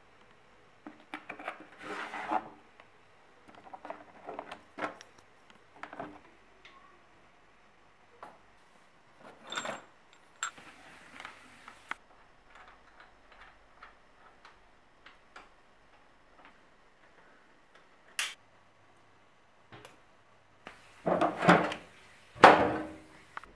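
Hands handling bicycle parts and tools: scattered clicks, rattles and clinks of small metal and plastic pieces, coming in short clusters, with the loudest metal clatter near the end.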